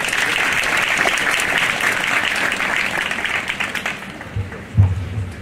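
Audience applauding, dying away after about four seconds, followed by a few low thumps near the end.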